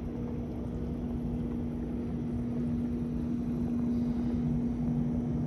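Boat motor running at a steady speed, a constant hum over a low rumble as the boat moves across the water.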